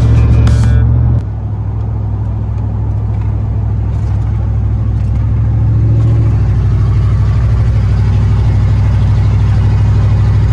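Chevy cargo van's engine running while driving, a steady low drone that builds a little louder over the first six seconds. Music plays briefly over the first second.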